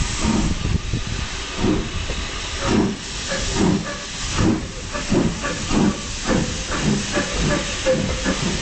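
Two small steam tank locomotives, an LB&SCR Terrier and an LSWR M7 working together, pulling away from a standstill: their exhaust beats start about a second apart and quicken steadily to roughly two and a half a second, over a steady hiss of steam.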